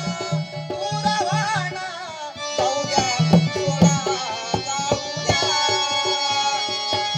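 Instrumental passage of Marathi gondhal folk music: hand drums beat an even rhythm under a melody of held, steady notes.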